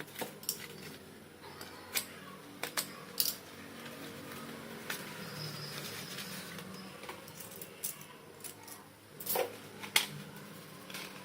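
Slate pencils clicking and clinking against one another as they are handled. The clicks are sharp and isolated, with a cluster a few seconds in and the loudest pair near the end.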